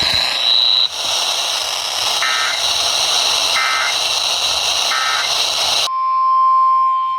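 Weather radio static with three short buzzy digital data bursts about 1.4 seconds apart: the EAS end-of-message code that closes a warning. About six seconds in, the static cuts off and a steady single-pitch alert tone begins: the weather radio attention tone announcing the next warning.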